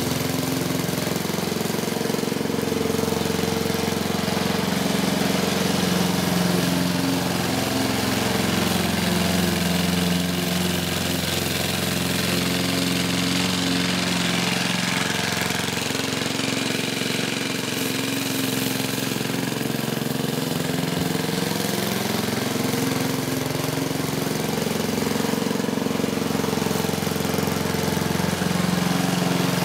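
Vintage Goodall rotary lawn mower's 3 hp Briggs & Stratton four-stroke engine running steadily while cutting grass, its pitch slowly rising and falling every several seconds.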